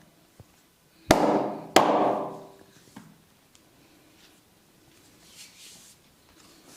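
Two loud, sharp slaps of a barber's hands on the client during a massage, a little over a second in and about two-thirds of a second apart, each ringing on briefly.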